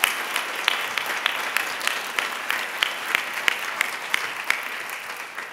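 Audience applause: many hands clapping, with sharp nearby claps standing out about three times a second. The applause dies away near the end.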